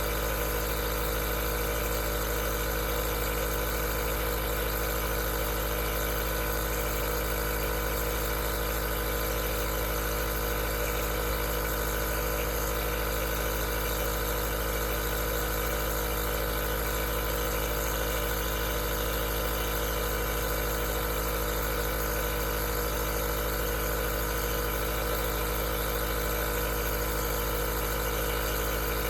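Aerosol nebulizer running steadily: an unchanging motor hum with several fixed tones over a hiss of air.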